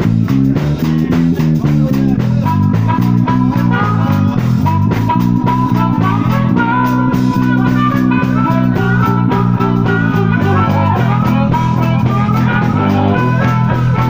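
A live blues band playing an instrumental passage: two electric guitars on a busy low riff with a steady beat, and a harmonica holding long notes over them from about two seconds in.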